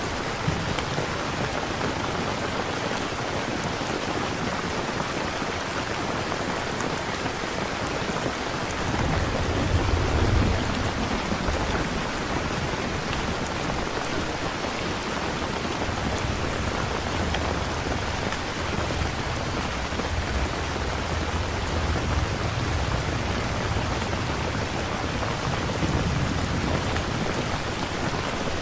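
Steady rain with low rolls of thunder, the strongest rumble about a third of the way in and another long one later on.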